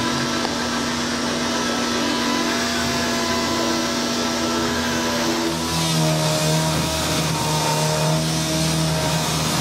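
Power sander running steadily while body filler and primer are feathered out, its tone dropping lower about halfway through.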